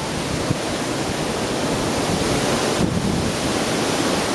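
Gale-force wind buffeting the microphone: a loud, steady rushing with rumbling gusts.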